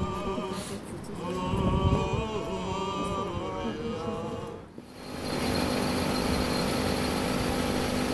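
Orthodox funeral chanting by the officiating priest, a sung melodic line, for the first four and a half seconds. It breaks off and gives way to a steady outdoor noise with a low hum.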